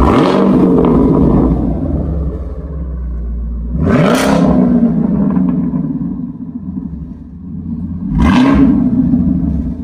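2018 Chevrolet Camaro SS's 6.2-litre LT1 V8 through an MBRP axle-back exhaust, revved three times while parked: at the start, about four seconds in and about eight seconds in. Each rev rises and falls back to a low rumbling idle.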